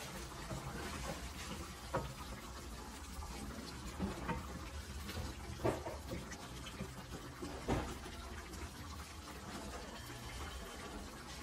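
Coconut-milk sauce of chicken adobo simmering wetly in a stainless steel skillet. A wooden spoon stirs it and knocks against the pan about four times.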